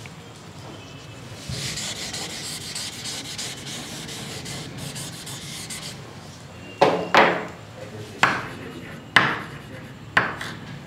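Chalkboard eraser rubbing across a chalkboard for a few seconds, then chalk on the board in about five sharp strokes, roughly a second apart.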